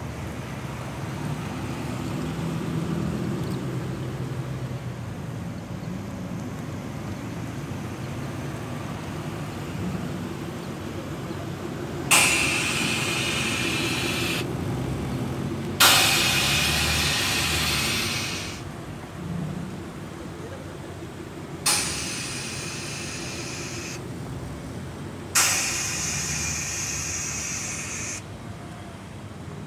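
Cars running at low speed, then four sharp hisses of released air, each lasting two to three seconds and fading, spaced a few seconds apart: compressed air venting from a lowered show car's air suspension valves as the ride height is adjusted.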